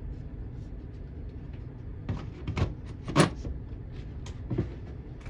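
A few sharp plastic clicks and knocks from a smoke/CO alarm being handled, its battery and battery door going back in, over a low steady rumble. The loudest click comes a little after three seconds in.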